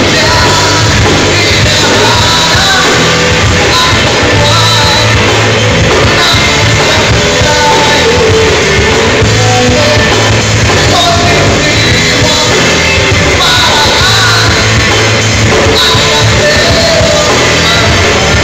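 Live band music played loud through a PA: a male lead singer over electric guitar and a steady low-end beat.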